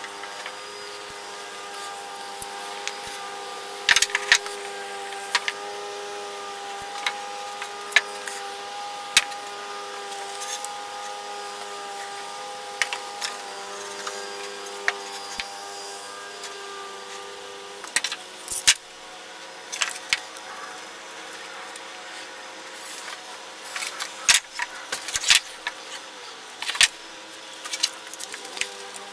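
Glued wooden blocks being handled and pressed together, with scattered knocks and clicks, then a one-handed bar clamp's trigger squeezed in a quick run of sharp clicks as the mallet-head glue-up is clamped near the end. A steady hum with several tones runs underneath.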